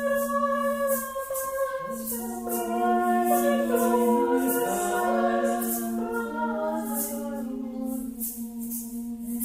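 Several voices singing long, overlapping held notes over a steady low drone note, with a shaker rattling in an even pulse.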